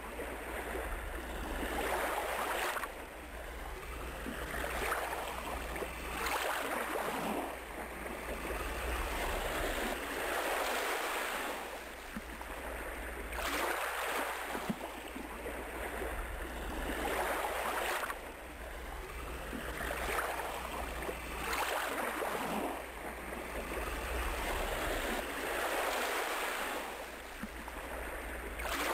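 Ocean surf: waves washing in and falling back, swelling and fading about every three to four seconds over a steady low rumble.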